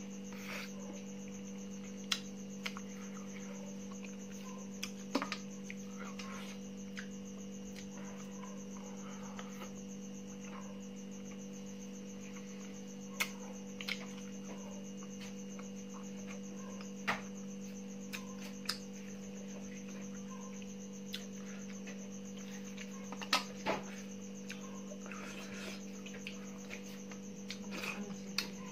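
A steady electrical hum, with a dozen short, sharp clicks and taps scattered through it from eating by hand out of a steel bowl.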